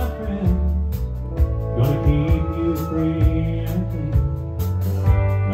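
Live country band playing an instrumental intro: electric guitar and stage piano over drums, with a steady cymbal beat about twice a second.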